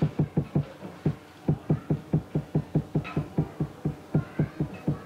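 Keyboard typing: a quick, fairly even run of dull key thuds, about five a second, with a short pause about a second in.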